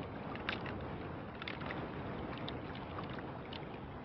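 Steady wind and water noise from a small boat at sea, with a few faint clicks.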